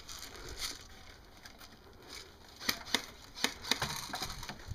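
Tactical vest pouches and a magazine being fumbled by hand during an airsoft reload: faint scuffing of gear, then a run of about six sharp clicks and knocks in the second half.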